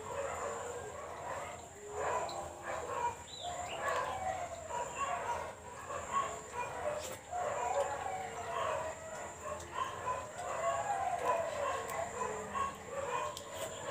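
Domestic animals calling: an unbroken run of wavering cries that rise and fall in pitch.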